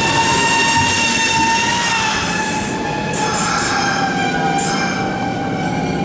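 Kintetsu Kyoto Line electric train moving slowly past the platform: running noise under a steady high whine whose pitch slowly drops.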